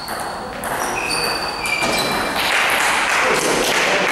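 Table tennis rally: a celluloid ball struck back and forth between rubber paddles and bouncing on the table, several sharp clicks about every half second, each with a short high ping. From about halfway through, a louder even hiss of hall noise rises over the strokes.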